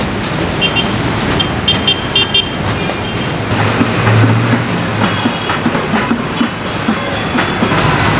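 Busy street traffic, with vehicle engines running and repeated short horn toots.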